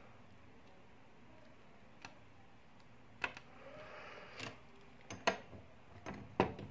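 Faint room tone, then from about three seconds in a scattering of sharp clicks and light taps: small earbud parts and tools being handled on a work surface.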